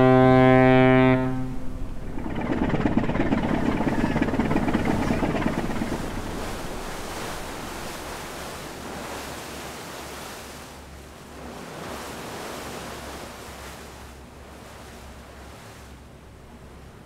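A ship's horn sounds one long, deep, steady blast that cuts off about a second in. After it comes a rush of waves that swells for a few seconds and then fades to a quieter, steady wash of water.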